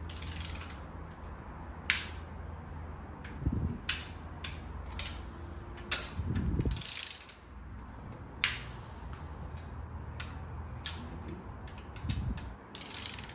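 Ratchet and long breaker bar on cylinder head bolts: scattered ratchet clicks and metallic clinks as the socket goes onto bolt after bolt for the 90-degree angle-tightening step, with a few dull thuds in between.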